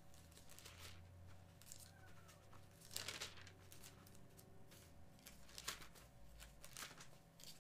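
Faint rustling of thin Bible pages being turned to look up a passage, a few soft rustles with the clearest about three seconds in, over a low steady hum.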